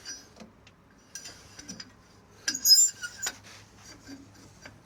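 Light metallic clicks and clinks from parts being handled on a combine with its engine off, with a louder rattling clatter about two and a half seconds in.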